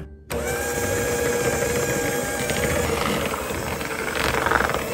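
Electric hand mixer running steadily with a steady whine, its twin beaters whipping mashed potatoes, butter and sour cream. It starts after a brief gap at the very beginning.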